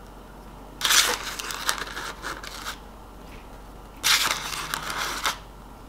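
Packaging of a box of powdered egg replacer rustling and crinkling as a measuring spoon scoops powder out of it, in two bursts: one about a second in and one about four seconds in.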